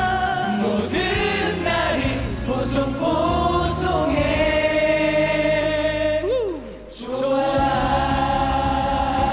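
A group of voices singing a pop song together over backing music, in long held notes. The music drops away briefly about two-thirds of the way through, then the voices come back in on a long sustained chord.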